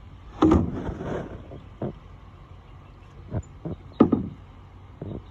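A handful of irregular knocks and clatters, the loudest about half a second in and again at four seconds, with smaller ones in between.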